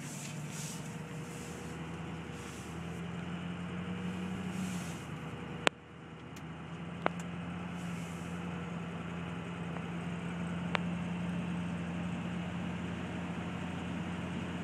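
Pickup truck engine running steadily at low speed, heard from inside the cab while the truck drives through about a foot of floodwater over a road. Patches of hiss come and go in the first half, and a few sharp clicks sound, the loudest about halfway through.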